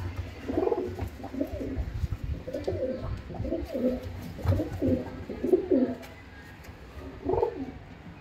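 Teddy high-flyer pigeons cooing: a run of repeated coos for about five seconds, then one more coo near the end.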